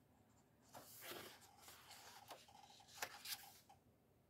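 A coloring book page turned by hand: a faint paper rustle starting about a second in, then two crisp paper flicks near three seconds in.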